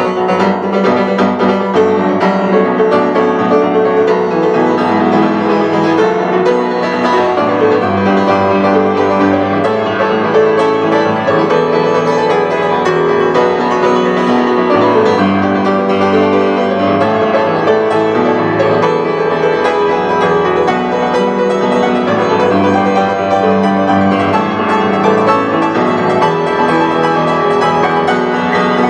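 Solo grand piano played continuously, with dense runs of notes and a sustained bass.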